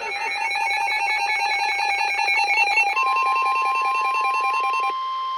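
Electronic weather alert tones. A fast, telephone-like warbling alarm sounds, and about three seconds in a steady single-pitch warning tone joins it. The warble stops near the end while the steady tone carries on, announcing the flash flood warning broadcast that follows.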